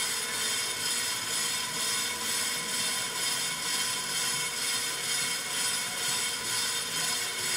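On-car brake lathe running, spinning the brake rotor while its cutting blades skim the rotor faces: a steady mechanical whirr and hiss that pulses evenly in loudness.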